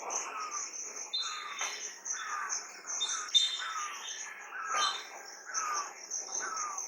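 Birds calling: one repeats a short, falling call about once a second, with a few brief high chirps from another, over a steady, pulsing high-pitched insect trill.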